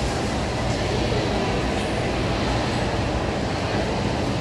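Steady background rumble and hubbub of a busy indoor public space, with no distinct event standing out.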